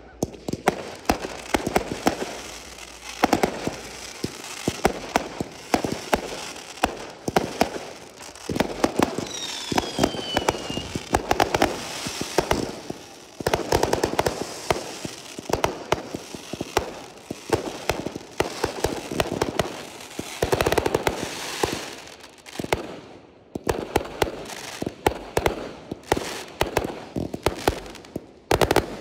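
Aerial fireworks display: a continuous, rapid barrage of shell bursts, bangs and crackling. About ten seconds in, a whistle falls in pitch.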